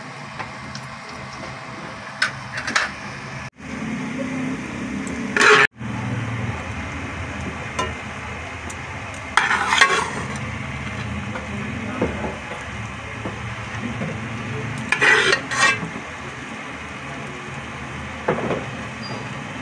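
A metal spoon clinking and scraping against a cooking pot as boiled rice is spread in a layer. The clinks are scattered, the loudest about five, ten and fifteen seconds in, over a steady low hum.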